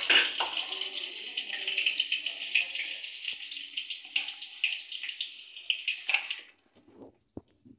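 Hot oil sizzling in a kadhai as broken boiled potatoes, green chilli and ginger fry, with a metal spatula scraping and clicking against the pan as they are stirred. The sizzle stops about six and a half seconds in, leaving a few faint knocks.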